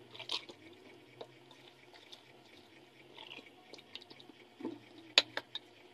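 Soft wet squishing and small clicks of a hand kneading pork belly with chopped onion, garlic and sauce in a basin to marinate it, with a few sharper clicks about five seconds in.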